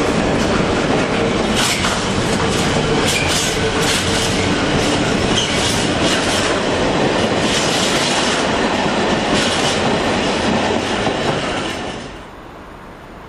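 Intermodal container freight train's wagons rolling past: a steady rumble of wheels on rail with scattered sharp clacks. About twelve seconds in, the sound drops away suddenly to a much quieter background.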